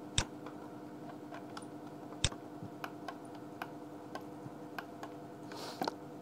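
Computer mouse and keyboard clicks: two sharper clicks, one just after the start and one about two seconds in, then a scatter of fainter clicks, over a steady low hum.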